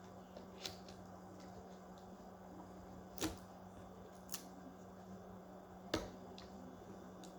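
Quiet room tone with a steady low hum and a few scattered sharp clicks, the loudest about three seconds in and again about six seconds in.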